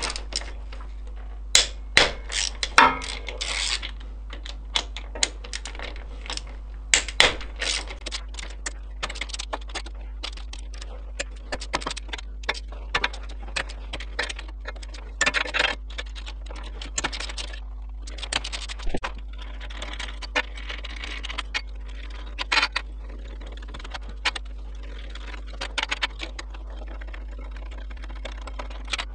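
Hand tools and metal parts clicking and clinking irregularly as bolts are undone and the gearbox covers of a quad are taken off, with a few short rattling stretches, over a steady low hum.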